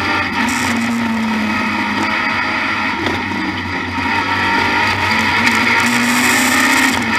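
BMW E30 M3 Group A racing car's four-cylinder engine running hard under load, heard from inside the cockpit, its note rising and falling as the car is driven round the track. It gets louder about four and a half seconds in.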